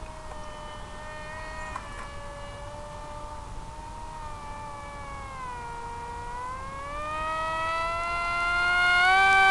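Electric motor and propeller of an NEFPV Spec Wing FPV flying wing whining in flight. The pitch sags a little midway, then climbs and gets louder over the last few seconds.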